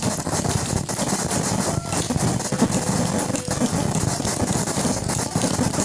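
Dense, unbroken noise from a live field-recording and noise performance: a steady engine-like rumble with scattered crackles and clicks over it.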